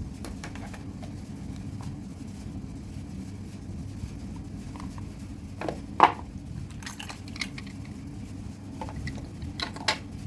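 Hands handling and opening toy packaging: scattered crinkles and clicks, with one sharp, loud crackle about six seconds in and a few more near the end, over a steady low hum.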